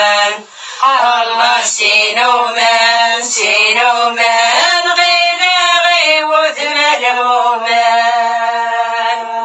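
A single voice sings a slow, mournful melody with long held notes and ornamented turns, with no accompaniment to be seen. The singing stops abruptly near the end.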